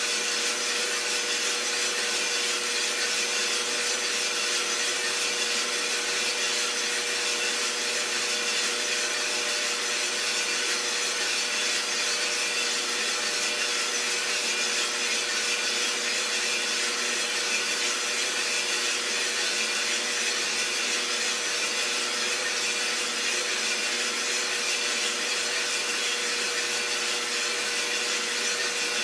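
Iroster 600 coffee roaster running steadily mid-roast: a constant hiss and rasp with a steady hum.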